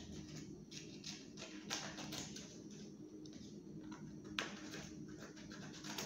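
Scissors snipping brown paper, with the paper rustling between cuts, in short irregular scratchy strokes; one sharper snip about four and a half seconds in.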